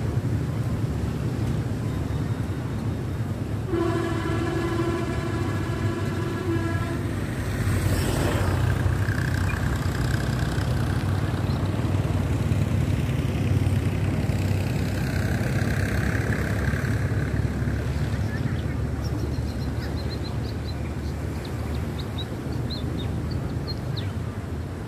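Steady low outdoor rumble of road traffic and wind, with a vehicle horn sounding for about three seconds a few seconds in.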